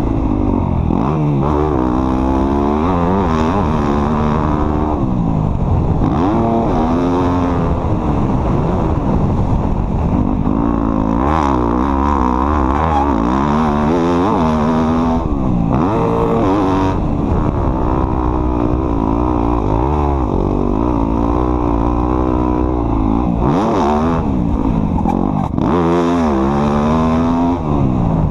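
Off-road vehicle engine running loud under a working throttle, its pitch rising and falling every second or two as it revs up and eases off.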